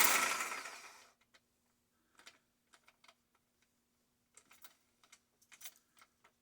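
A power tool winding down over about a second after being switched off, then faint scattered clicks and taps of handling, over a faint steady hum.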